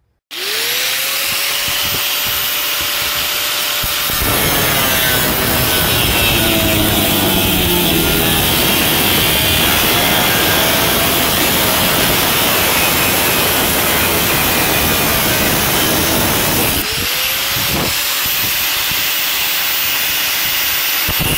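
Power cutting tool slicing through the car's sheet-metal cowl. The motor spins up to a steady whine, bites into the metal about four seconds in and cuts steadily with a rough, grinding rasp. Near the end it eases off briefly and spins up again.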